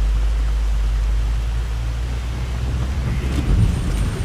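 Range Rover Sport engine running with a steady low drone as the SUV creeps off on a loose gravel slope at a set crawl speed. From about three seconds in, irregular crunches and knocks of the tyres on stones join it.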